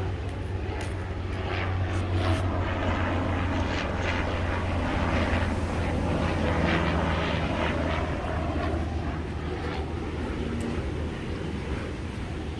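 Helicopter flying past with a steady low engine and rotor drone that grows louder toward the middle and then fades away.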